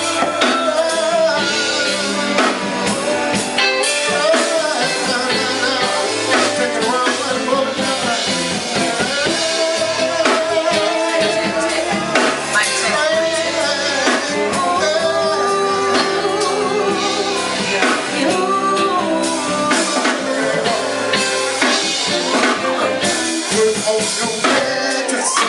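Band music with a singing voice, drum kit and guitar, playing steadily.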